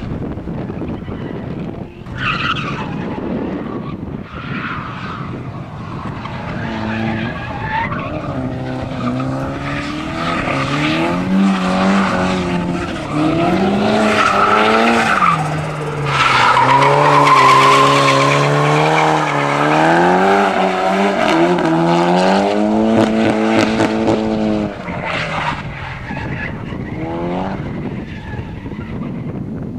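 Drift car sliding through corners with tyres squealing, its engine revving up and down in pitch as the throttle is worked. Loudest in the middle, fading near the end.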